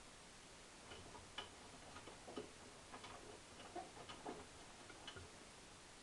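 Hotpoint NSWM 843C washing machine drum turning slowly, its laundry tumbling with faint, irregular clicks and taps.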